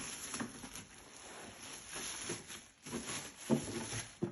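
Plastic bag rustling and crinkling as a foot massager is pulled out of it, with a louder handling bump about three and a half seconds in.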